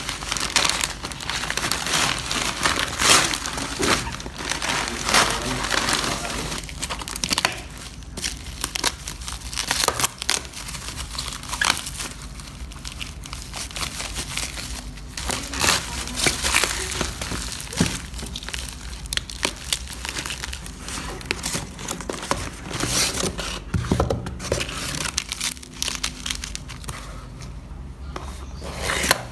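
Packaging being handled: plastic or paper crinkling and crumpling in irregular bursts, with some tearing, easing off near the end.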